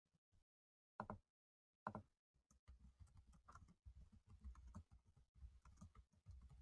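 Faint typing on a computer keyboard: two louder clicks about one and two seconds in, then a quick run of keystrokes.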